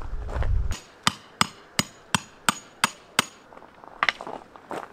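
A hammer striking a tent peg: seven sharp, ringing blows about three a second, after a low rumble in the first moment, with a few softer knocks near the end.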